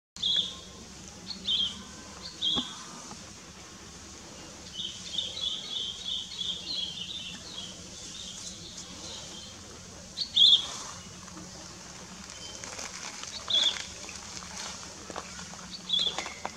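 Birds chirping: short, high chirps every second or two, with a quick run of chirps about five seconds in and the loudest chirp about ten seconds in. A faint low steady hum lies underneath.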